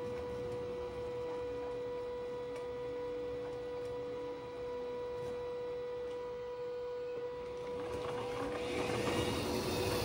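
Steady high-pitched electric whine, then a 3D-printed model roller coaster's train rolling in on its plastic track, its wheels rattling louder and louder over the last two seconds.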